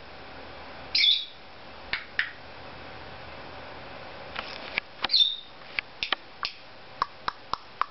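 Cape parrot giving short, high squawks, once about a second in and again near five seconds, then a run of sharp single clicks spaced about a third of a second apart near the end.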